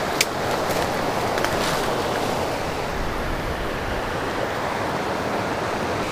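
River rapids rushing, a steady, even sound of white water.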